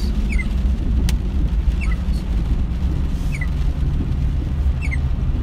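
Steady low rumble of a car driving on a rain-soaked road, heard from inside the cabin. A short falling squeak comes about every second and a half, from the windshield wipers sweeping the wet glass, and there is a single click about a second in.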